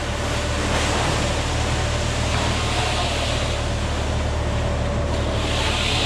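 Concrete mixer truck's diesel engine running steadily, with a steady rushing noise over it.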